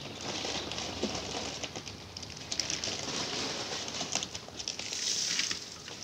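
Light splashing and dripping of water in a paddling pool as a small paper-skinned model coracle is unloaded and lifted out, with a short rush of water running off it about five seconds in.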